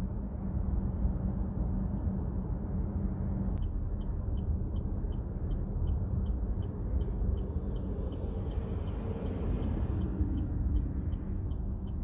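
Steady low road and engine rumble inside a 2024 Chevrolet Trax Crossover. From about four seconds in, the turn-signal indicator ticks over it at about three clicks a second.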